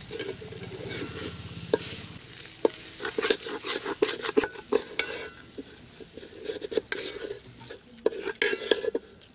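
A metal ladle stirring and scraping rice and moong dal around a metal cooking pot, with irregular knocks and scrapes against the pot's sides and base over a sizzle of the grains frying in oil.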